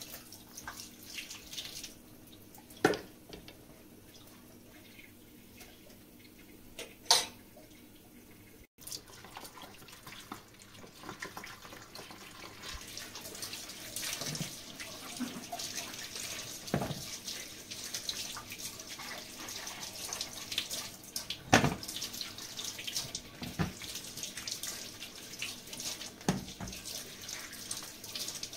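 Water running and splashing, with scattered light knocks and clinks. Two sharp knocks come in the quieter first seconds, and the water grows louder after a cut about nine seconds in.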